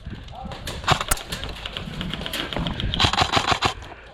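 Airsoft guns firing: sharp clicking shots in quick bursts, the densest run of rapid shots near the end.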